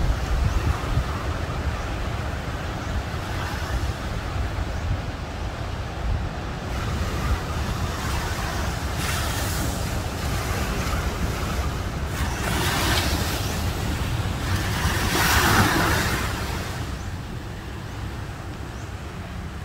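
Ocean surf: a steady rumble of breaking waves with wind buffeting the microphone, and several hissing rushes of water washing up the sand, the loudest about fifteen seconds in.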